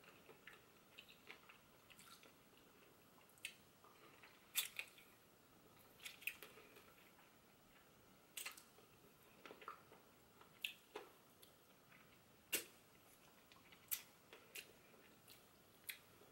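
Mouth sounds of eating chicken feet: wet smacks, sucking and chewing clicks as the meat and skin are pulled off the bones, coming at irregular intervals, roughly one a second.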